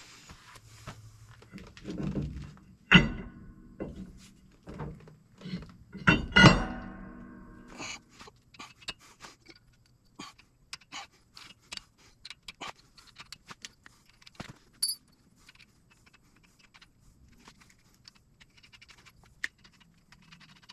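Hand work on a heavy truck's front wheel hub: metal clanks, two loud ones about three and six seconds in, the second followed by brief ringing. Then comes a long run of light metallic clicks and taps as nuts are fitted by hand onto the hub studs.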